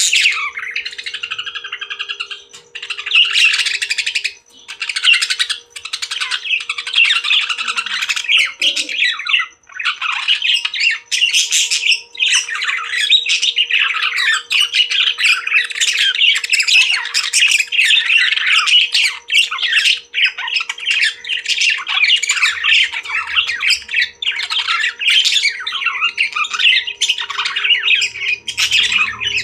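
Parrots chirping and squawking in a dense, nearly unbroken stream of chatter, with a few short pauses.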